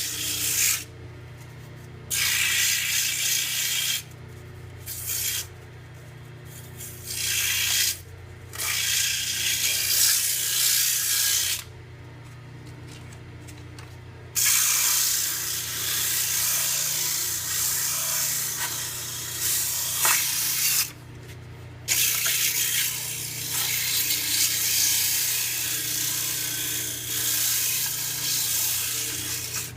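Sandpaper held against a spinning cedar lure blank on a Jet mini lathe, making a scratchy hiss that comes in stretches of a few seconds with short pauses, over the lathe motor's steady hum.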